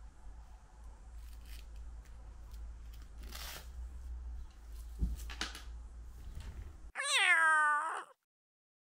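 Soft rustling and a light knock as a fabric cat harness is handled, over a low hum. Near the end a cat gives one loud, drawn-out meow of about a second that cuts off sharply.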